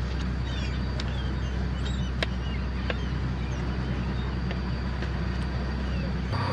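Boat engine running with a steady low drone, with a few sharp clicks and faint high chirps over it.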